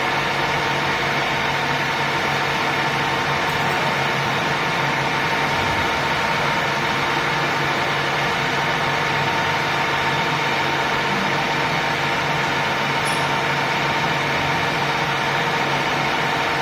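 16K25B screw-cutting lathe running steadily, a constant mechanical hum with several steady whining tones.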